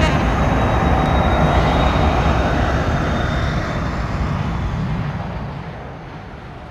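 Boeing 747 jet engines running, a steady rumble and roar of noise with a faint high whine, fading out over the last few seconds.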